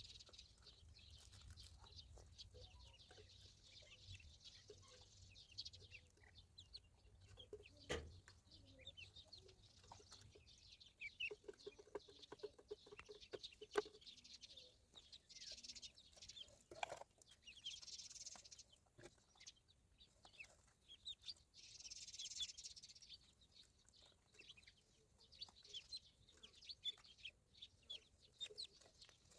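Ducklings peeping: many short, high chirps overlapping throughout, faint, with a brief low rapid rattling call near the middle.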